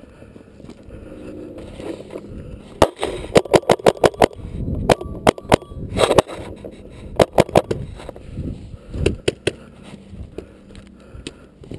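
Paintball markers firing: strings of sharp pops at about eight a second for several seconds, then three more shots about nine seconds in.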